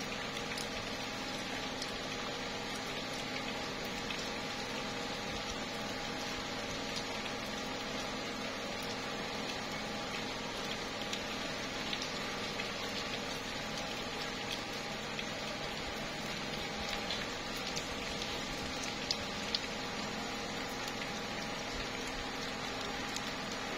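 Slow, steady rain falling on tree leaves: an even hiss of rain with scattered single drops tapping, and two sharper drop taps about three-quarters of the way through.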